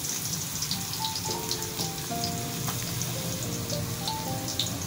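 Chopped garlic frying in hot oil in a wok, a light crackling sizzle, under background music with a simple melody of held notes.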